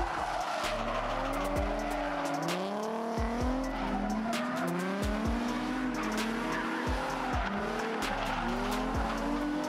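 Drift cars, a Nissan 350Z among them, sliding in tandem with tyre squeal. The engines rev up and fall back over and over as the throttle is worked through the slide, with sharp pops scattered throughout.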